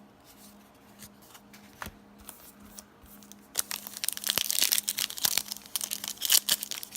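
Faint handling clicks, then from about three and a half seconds in, a trading-card pack wrapper being torn open and crinkled in the hands: a dense, loud crackle.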